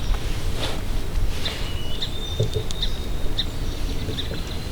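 Songbirds chirping: short high notes and thin whistles scattered throughout, over a steady low rumble.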